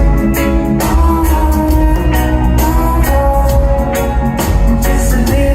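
Background music: a song with guitar, drums, bass and a singing voice at a steady beat.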